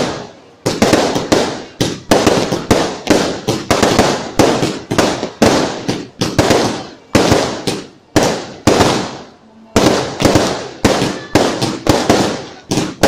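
Fireworks going off in quick succession: sharp bangs about two a second, each fading away before the next, with a brief lull about three-quarters of the way in.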